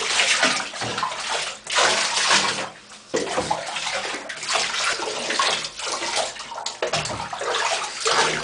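Water running and splashing in a bathtub while two Shih Tzus are washed, with brief lulls about a second and a half and three seconds in.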